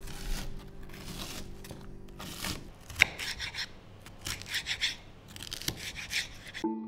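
Kitchen knife slicing vegetables on a cutting board: an irregular run of crisp cuts and knocks of the blade on the board, the sharpest about three seconds in. Plucked guitar music comes in at the very end.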